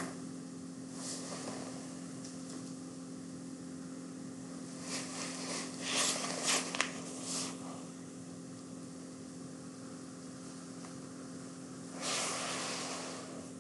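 Steady low background hum, with a few short bursts of hiss-like noise: about a second in, a cluster from about five to seven and a half seconds in, and another near the end.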